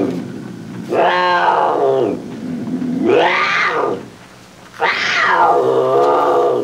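Three long, wailing animal-like calls, each rising and then falling in pitch, with the falling tail of another at the very start. A low steady hum runs underneath.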